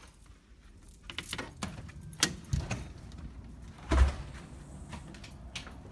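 A door being opened and shut: a run of clicks and knocks of the latch and handle, then a heavy thump about four seconds in.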